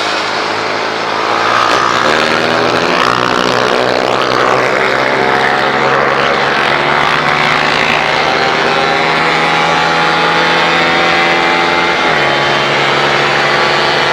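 Motorcycle engine running under way, its note climbing slowly, then dropping in a sudden step about twelve seconds in and holding steady after.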